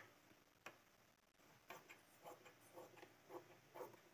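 Scissors cutting through cloth: faint, short snips, about two a second.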